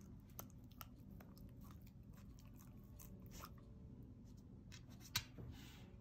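Shiba Inu faintly biting and chewing chunks of baked sweet potato, with scattered short clicks, the sharpest about five seconds in.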